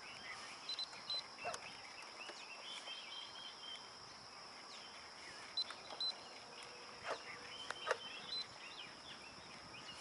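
Birds chirping and calling, short scattered calls throughout, over a steady high-pitched hiss.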